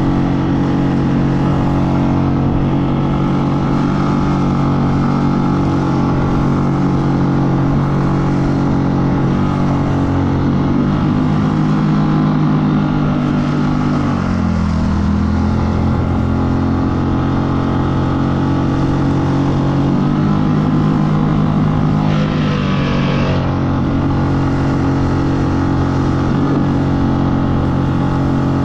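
Single-cylinder Mercury 6 hp four-stroke outboard running steadily at low, break-in throttle, pushing an inflatable catamaran through chop. Its note dips briefly and recovers about halfway through, and a short hiss comes about three-quarters of the way through.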